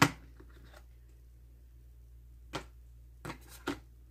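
Clear plastic disc tray of a Blu-ray steelbook being handled and worked loose, giving a sharp click at the start and three more short plastic clicks a little after halfway.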